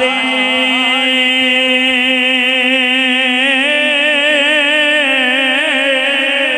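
A man's voice holding one long sung note, steady in pitch with a slight waver, as a drawn-out syllable of a chanted Punjabi devotional verse.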